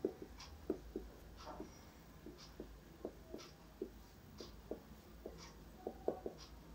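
Dry-erase marker writing on a whiteboard: quiet, irregular short squeaks and taps of the pen strokes, a few a second.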